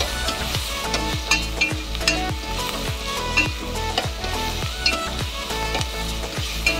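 Chopped onions sizzling in hot oil in a steel pot, stirred with a steel spoon that scrapes and clinks against the pot as they saute. Background music with a steady beat plays over it.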